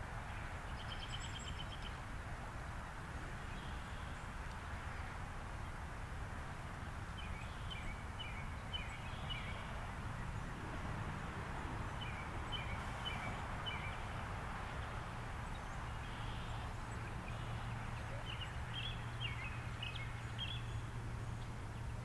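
Steady outdoor background noise with a low hum, and birds chirping in short runs of quick high notes now and then, most of them around the middle and near the end.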